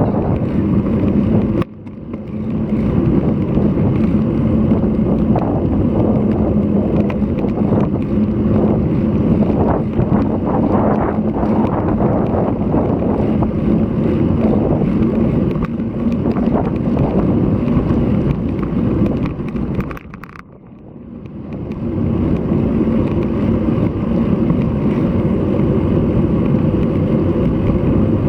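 Wind rumbling on an action camera's microphone during a road bike ride in the gusty wind ahead of a typhoon, mixed with road and tyre noise. It drops out sharply for a moment just under two seconds in, and eases for a couple of seconds about twenty seconds in before building back.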